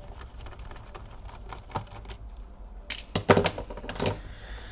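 Small plastic clicks and knocks from a laptop's case and parts being handled during disassembly, with a cluster of sharper clicks about three seconds in.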